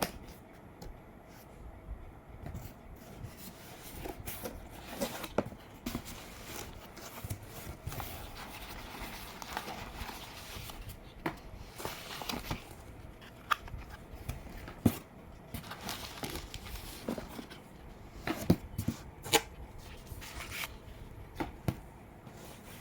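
A vinyl record's packaging being handled and unwrapped: rustling and crinkling with scattered sharp clicks and taps.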